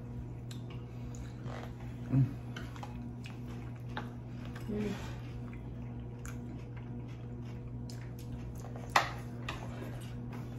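Eating sounds: quiet chewing and scattered clicks of utensils on a plate, with one sharper click about nine seconds in, over a steady low hum.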